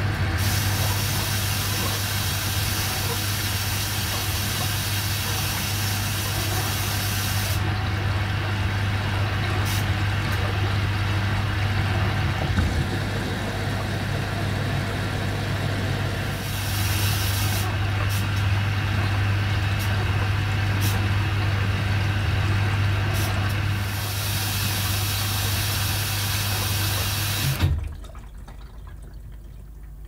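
Beko WX84243OW washing machine running with a steady low hum and water rushing through it, cutting off suddenly about four seconds before the end.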